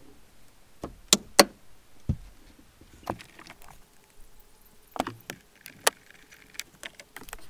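Side cutters snipping plastic cable ties: two sharp snaps close together about a second in, then a few more single snaps and clicks spread through the rest, as the old cargo net is cut free.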